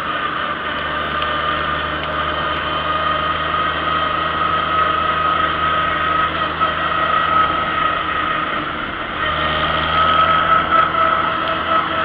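Vintage farm tractor engine running steadily under way on the road. The engine sound dips briefly about nine seconds in, then picks up again louder.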